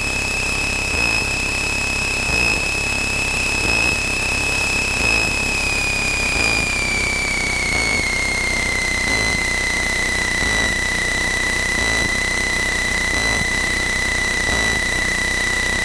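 Cockpit noise of a Cessna 162 Skycatcher in flight: the drone of its Continental O-200 engine and propeller under a steady high whine. The whine slides down in pitch between about six and eight seconds in, as the engine speed is brought back, then holds at the lower pitch.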